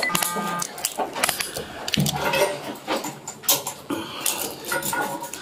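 Metal handcuffs clinking and clicking, scattered sharp clicks, as a second set of cuffs is linked to the pair already on a man's wrists to lengthen the restraint.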